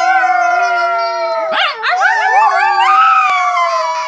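Small dog howling in long, wavering drawn-out notes, with a brief break about a second and a half in before it howls again.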